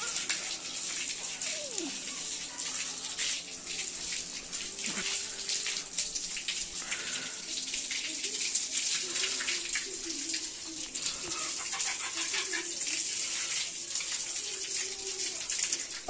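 Water from a garden hose splashing over a heifer and onto a wet concrete floor: a steady spattering hiss with many small splashes.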